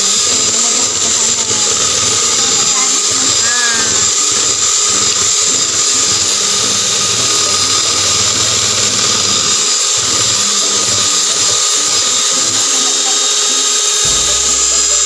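Electric hand mixer running steadily with a constant motor whine, its twin beaters whipping cream in a plastic bowl.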